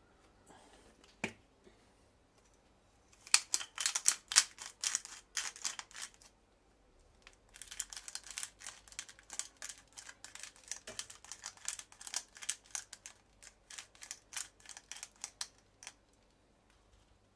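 Hand pepper mill grinding black pepper onto a fish fillet: two long runs of rapid crunching clicks, the first about three seconds in lasting about three seconds, the second from about seven seconds in until near the end. A single sharp knock comes about a second in.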